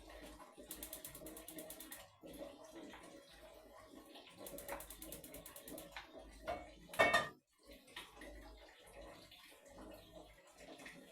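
Gas cooker's igniter ticking rapidly in two runs of about a second each, as the burner is lit, then a single loud, sudden noise about seven seconds in.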